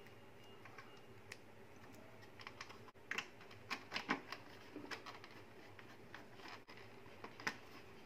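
Scattered light clicks and taps from fitting a replacement fan run capacitor: crimp connectors being joined and a screwdriver fastening the capacitor's metal tab to the plastic fan housing, busiest in the middle.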